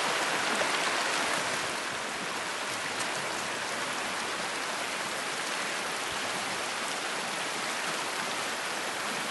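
Shallow river water rushing steadily over a flat rock bed, a little louder in the first second or two.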